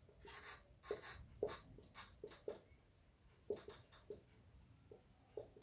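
Marker pen squeaking and scratching on a whiteboard in short, faint strokes as letters and bond lines of a chemical structure are drawn.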